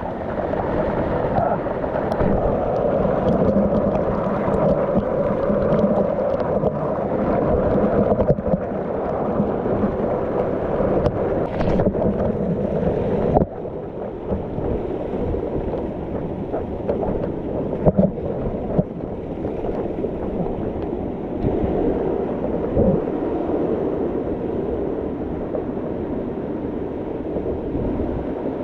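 Waterfall rushing steadily, a continuous close roar of falling water. About halfway through it drops slightly and turns duller.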